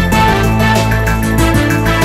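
Background music with a steady beat and sustained synthesized notes.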